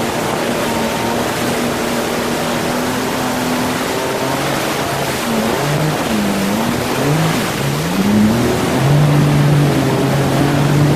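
Yamaha VX WaveRunner's engine running at speed, not in its low-power learner mode, over the rush of spray off the hull. About halfway through, the engine note dips and rises a few times, then settles into a steady lower drone that is a little louder near the end.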